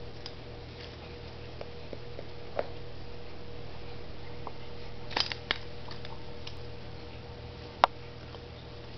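Scattered light clicks and taps as a cat paws and noses at the ornaments and branches of an artificial Christmas tree, a small cluster about halfway through and one sharp click near the end, over a steady low hum.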